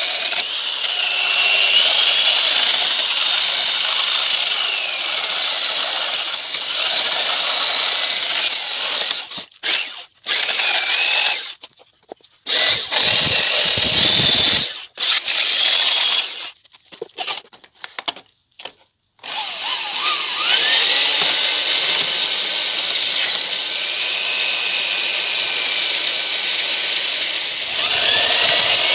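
Power tools working a rusty steel tube: an electric drill spins the tube while a Bosch belt sander sands it, the motor whine rising and falling in pitch. In the middle the tools cut out and restart several times before running steadily again.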